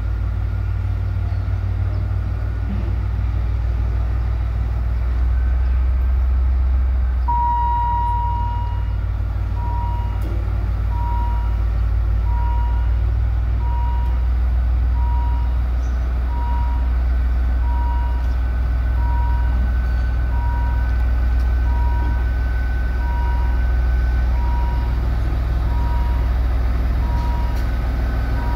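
Diesel shunting locomotive HAS 77 running with a steady low engine drone as it moves slowly through the yard. About seven seconds in, a high electronic warning beeper starts with one long tone, then short beeps a little more than once a second.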